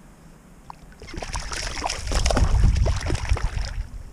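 Splashing and sloshing in shallow stream water as a hand-held trout thrashes during release, starting about a second in: a rapid, irregular run of splashes over a low rumble.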